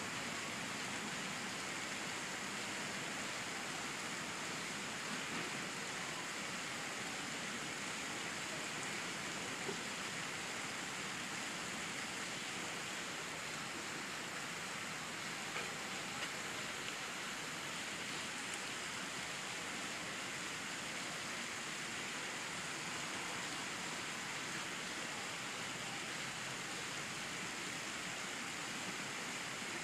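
Steady, even hiss of outdoor background noise, with no distinct sound standing out.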